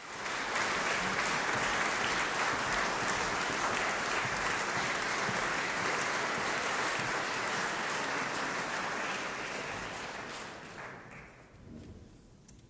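Concert audience applauding, steady at first, then thinning out from about eight seconds in and dying away near the end.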